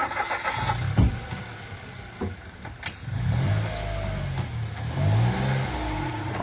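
2020 Mitsubishi Mirage's 1.2-litre three-cylinder engine running and revving up and down as the car is driven up onto wooden boards to raise it, with a sharp knock right at the start and a few clunks along the way.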